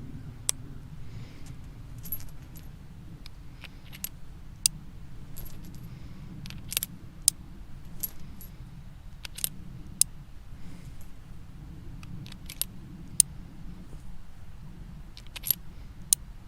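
Colt M1873 Single Action Army revolver being handled: a series of sharp metallic clicks and clinks, irregularly spaced, with a bright ringing edge, over a steady low hum.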